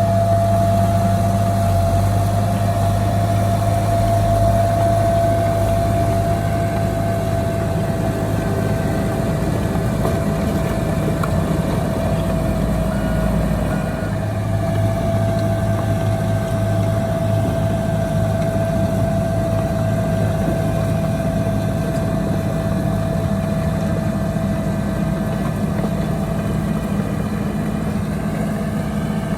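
Diesel engine of heavy earthmoving machinery running steadily, with a low hum and a steady high whine over it.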